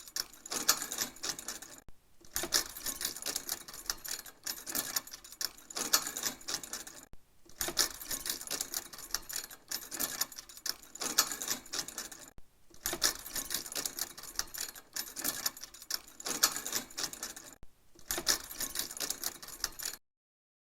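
Metal chain rattling: dense runs of clinking in shaking bouts of a few seconds each, broken by brief pauses, stopping abruptly near the end.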